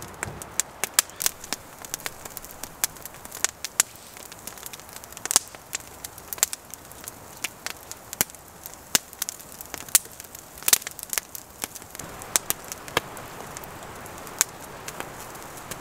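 Wood campfire crackling and popping: irregular sharp pops, a few a second, over a steady hiss of burning wood.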